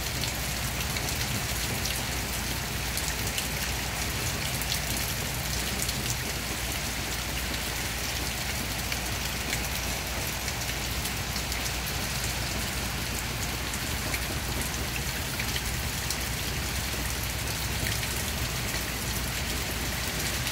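Rain falling steadily into a shallow puddle: an even hiss of rain with many small drop splashes ticking through it.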